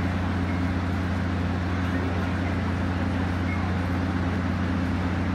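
Diesel engines of a Taiwan Railway DR3000 diesel multiple unit idling steadily as the train stands at the platform: an even low hum with no change in pitch.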